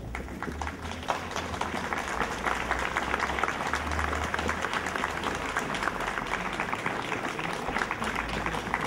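Crowd applauding: many people clapping densely and steadily, the applause swelling about a second in.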